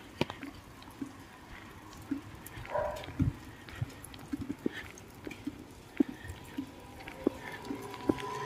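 Light rain: water drips and taps landing irregularly, a few to several times a second, over a soft steady hiss.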